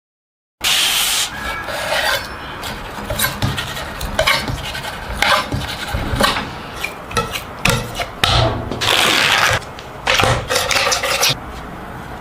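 Rubbing and scraping sounds with frequent short clicks and knocks, starting after a brief moment of dead silence.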